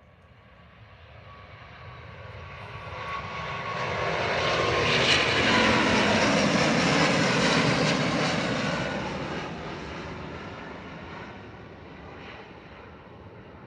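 Airbus A350-941 jet airliner with Rolls-Royce Trent XWB turbofans taking off and passing by at full takeoff power. Its engine noise swells to its loudest about five to eight seconds in, then fades, dropping in pitch as it goes past.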